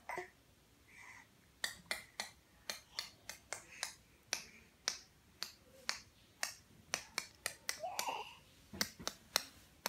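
A run of sharp, irregular clicks, about two or three a second, made close to the microphone, with a brief rising voice sound about eight seconds in.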